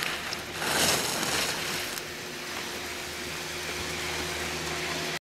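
Racing skis carving across hard-packed snow: a loud scraping hiss from the edges about a second in, then a quieter, steady hiss, over a faint steady hum.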